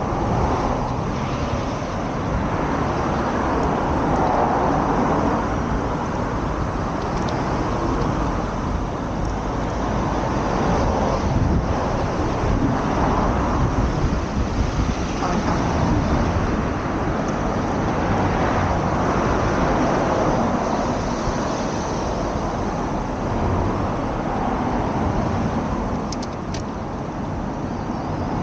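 Road traffic: several cars passing one after another, each swelling and fading over a continuous noisy wash.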